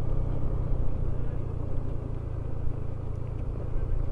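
Motorcycle engine running steadily at cruising pace, with wind and road noise from riding.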